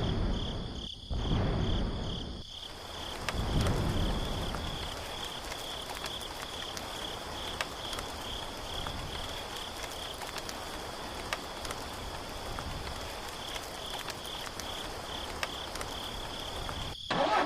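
Insects chirping steadily in a pulsing high-pitched trill over an even background hiss, with a few low rumbles in the first few seconds.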